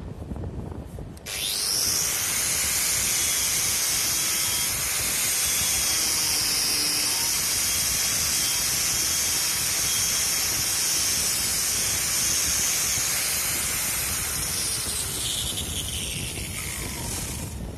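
Bosch AWS 11-125 CI angle grinder with a twisted-knot steel wire brush, switched on about a second in and scouring the end grain of a wooden board with a steady hissing rasp. It switches off and winds down near the end.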